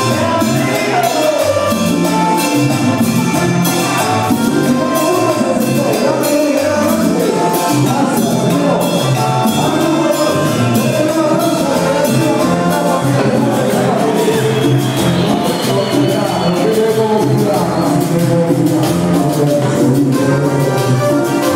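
Live Latin dance band playing, with percussion and a sung melody.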